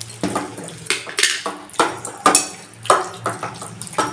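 Hands squishing and mixing marinated chicken in a steel bowl, with bangles clinking against the bowl in quick, sharp strokes about twice a second, some with a short metallic ring. A low steady hum sits underneath.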